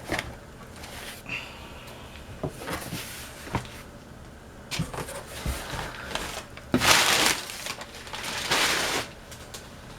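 A cardboard shipping box being opened and handled: scattered knocks and rustles, then a louder stretch of cardboard scraping and rustling about seven seconds in that lasts about two seconds.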